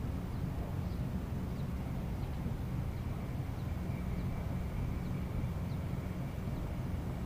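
Steady low outdoor rumble on the river, with faint short high chirps about once a second and a faint thin high tone through the middle.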